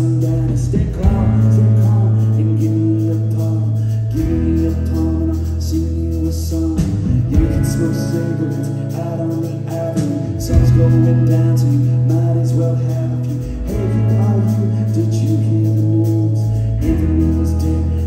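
Live rock band playing a song through a theatre PA, with electric guitars, bass, drums and keyboard under lead vocals. Held bass notes change every few seconds.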